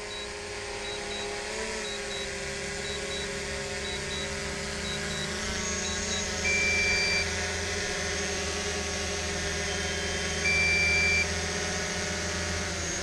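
Quadcopter drone hovering close by as it comes down to land, its propellers giving a steady whine of several tones. A warning beep sounds twice, about six and a half and ten and a half seconds in, in step with the drone's low battery.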